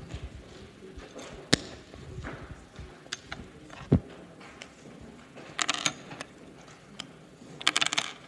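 Microphone handling noise as a microphone is fitted and adjusted: scattered clicks, a sharp click about a second and a half in, a heavy thump at about four seconds, and two short bursts of scraping rustle near the end.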